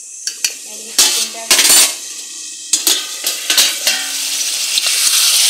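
Metal cookware clattering: a steel spoon and lid knocking against metal pots in several sharp clanks and clinks. From about four and a half seconds in, a steady sizzle of frying rises, which continues from the pan of chicken in masala.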